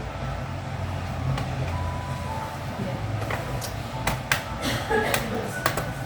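Low steady background rumble, joined from about halfway by a series of small sharp clicks and taps, typical of a laptop's casing and parts being handled while it is opened up.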